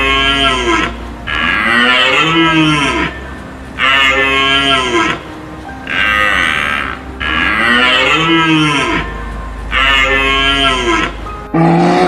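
A large animal bellowing over and over: calls about a second long that rise and fall in pitch, coming every one to two seconds.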